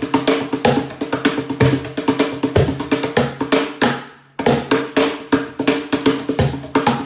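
Two snare cajons, a Shoma Acoustics carbon fibre model and a Joe series model, struck by hand in a fast, dense run of rudiments, mixing deep bass strokes and sharp snare-rattling slaps. The playing stops briefly a little past halfway, then picks up again.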